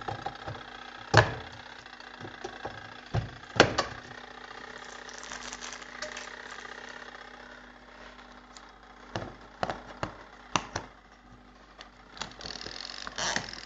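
Semi-automatic washing machine's wash motor running on its newly replaced timer switch, a steady hum that dies down about eight seconds in. Several sharp knocks and clatters come through it.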